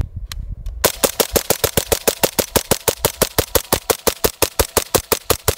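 Suppressed IWI X95 Tavor bullpup rifle in 5.56 with an OSS HX-QD suppressor firing a fast, even string of supersonic rounds, a magazine dump at about five shots a second. It starts a little under a second in.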